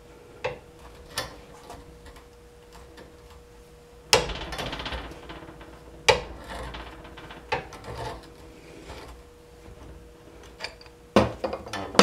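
A pipe wrench on a tight pipe fitting of a water pump held in a bench vise: irregular metal clanks and knocks with scraping between them, the loudest about four seconds in, ringing briefly.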